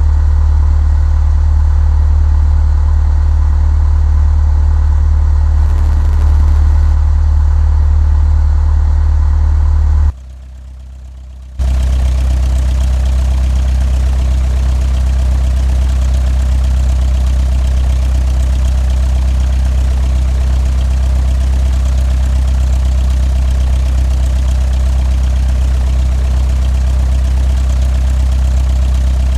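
Cessna 172's piston engine heard as a steady, deep drone inside the cockpit. About ten seconds in, the sound drops away sharply for a second and a half, then comes back unchanged.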